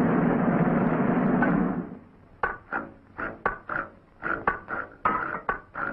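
Cartoon soundtrack of music and sound effects: a dense rush of noise for about two seconds, then a quick run of sharp knocking hits with a ringing note, about four a second.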